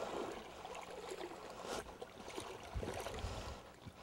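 Faint sloshing and gurgling of creek water around a wading person's legs as they walk downstream into deeper water, over the low rush of the stream, with an uneven swell of splashing about three seconds in.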